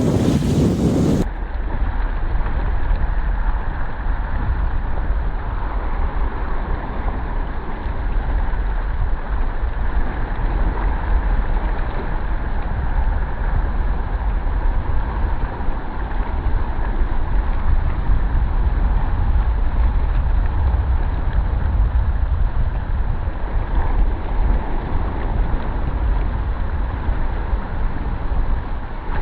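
Steady wind rumbling on the microphone: a loud, even rush with a heavy low rumble.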